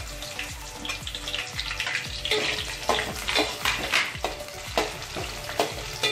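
Chopped small onions (shallots) sizzling in hot sesame oil in an aluminium kadai. From about two seconds in, a steel spoon stirs them, clinking and scraping against the pan about every half second.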